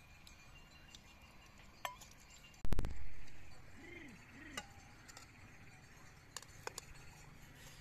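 Light clinks and taps of cooking utensils and dishes, with one loud knock about a third of the way in.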